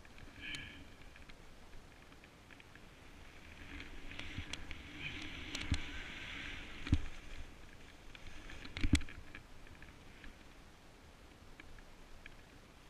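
Snowboard sliding through deep powder snow: a soft hiss that swells through the middle and fades, with a few dull thumps.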